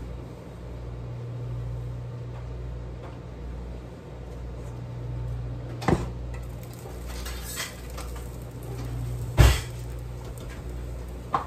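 Metal kitchen utensils and cookware clanking over a steady low hum. There is a sharp clatter about six seconds in as a utensil drawer is opened and rummaged, and a louder single clank about three seconds later.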